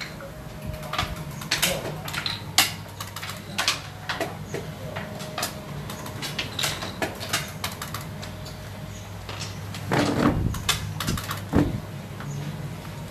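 Background ambience: a steady low hum with scattered light clicks and knocks, and a louder low-pitched sound about ten seconds in.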